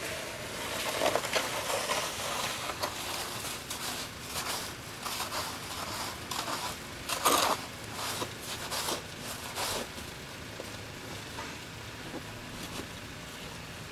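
Snow being scraped and pushed off a brick walkway with hand tools, in irregular scraping strokes. The loudest scrape comes about seven seconds in, and the strokes thin out in the last few seconds.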